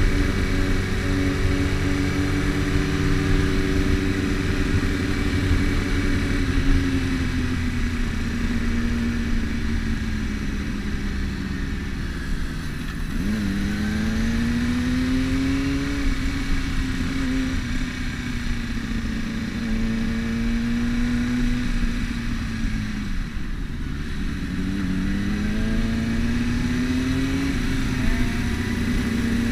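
Sport motorcycle engine heard from the rider's own bike while riding, with wind rumbling on the microphone. The engine note sinks slowly as the bike slows, then rises sharply about halfway through as it accelerates, and dips and climbs again near the end.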